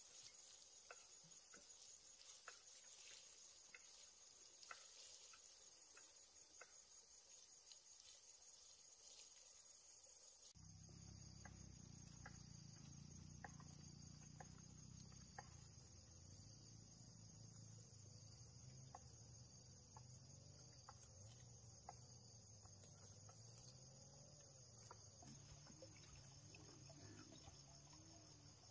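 Faint, steady insect chirring with scattered soft ticks; a low rumble comes in suddenly about a third of the way through.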